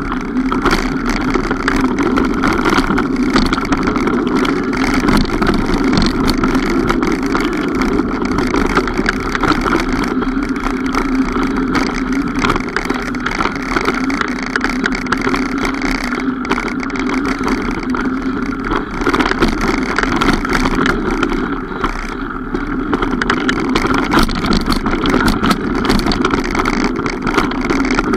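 Mountain bike being ridden: a steady rushing with constant fine rattling and clicking.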